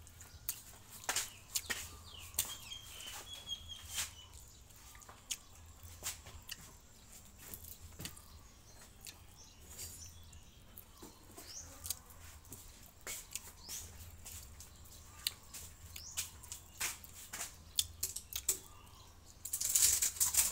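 Quiet eating sounds: scattered small clicks and smacks of chewing and of fingers handling food, with a faint bird chirp in the background about three seconds in. A louder rustle near the end as a hand reaches into a woven bamboo sticky-rice basket.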